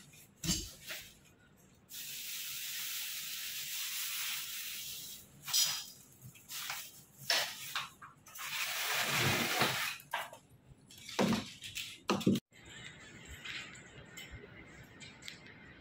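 A hissing spray, heard twice: a long hiss lasting about three seconds starting two seconds in, and a fuller one lasting about two seconds near the middle. Short knocks and clicks come between them, and after a cut near the end it goes quieter.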